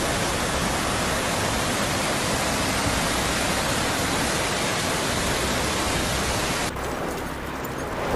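A loud, steady rushing noise with no distinct events. About seven seconds in it cuts abruptly to a thinner, quieter rushing noise.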